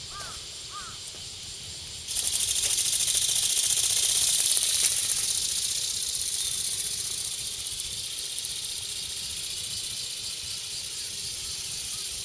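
Small electric motor and flapping gearbox of an E-BIRD radio-controlled ornithopter, starting suddenly about two seconds in with a high hissing buzz and then slowly fading. Two faint short chirps come just before it starts.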